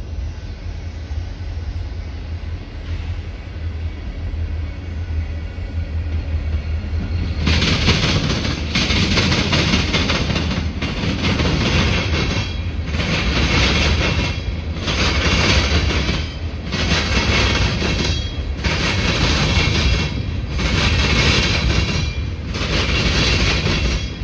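Freight train of hopper cars rolling past. A low rumble gives way, about seven seconds in, to a rhythmic clatter of wheels on rail, one loud swell about every second and a half.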